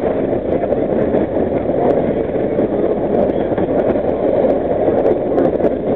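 Vintage New York City subway train running through a tunnel: a loud, steady rumble of the train on the rails, with a few faint clicks.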